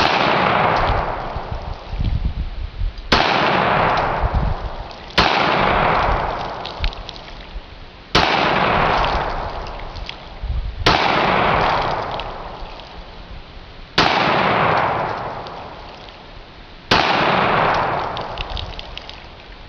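A 9mm Taurus PT111 Pro pistol fired seven times at an uneven pace of about one shot every two to three seconds, each shot followed by a long rolling echo that fades out before the next.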